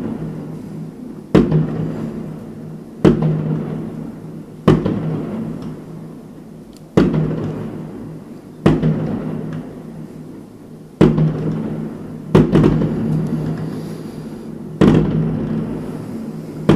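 Consumer multi-shot firework battery firing aerial shells that burst one after another: eight sharp bangs, roughly every one and a half to two and a half seconds. Each bang is followed by a long echoing tail off the surrounding high-rise apartment blocks.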